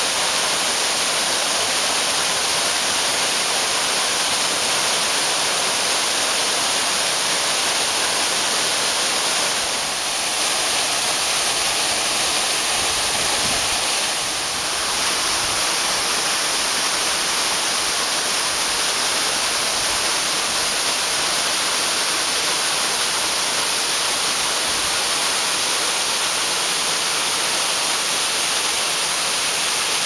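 Waterfall plunging onto rocks and into a pool: a loud, steady rushing hiss of falling and splashing water, dipping slightly twice around the middle.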